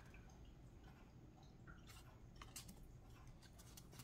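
Near silence, with a few faint, short clicks of stiff tarot cards being slid from the front of the deck to the back.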